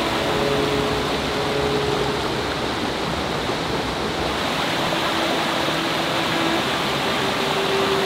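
Mountain stream rushing steadily over rocks, an even hiss of water that does not let up.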